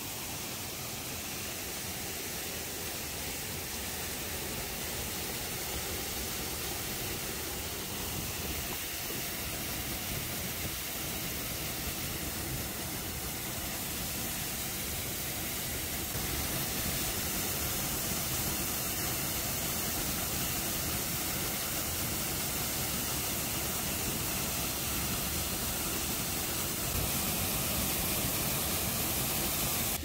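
Loud waterfall: a steady, dense rush of falling water that grows a little louder about halfway through and again near the end.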